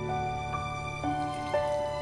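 Soft instrumental background music: sustained melody notes changing about every half second over a steady low note.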